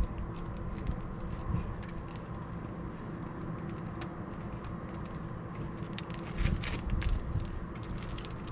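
Light metallic clinks and rattles from handling a new faucet hose with stainless-steel end fittings, with a cluster of louder knocks about six and a half seconds in, over a steady background hum.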